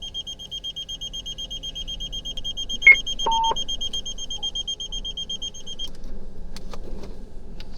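Rapid high-pitched electronic beeping that stops about six seconds in, with a sharp click and a short lower beep about three seconds in. Underneath is a faint steady hum of the car's engine running.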